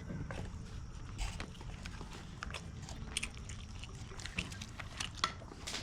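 Someone chewing and eating close to the microphone: scattered small clicks and crunches over a low steady background rumble.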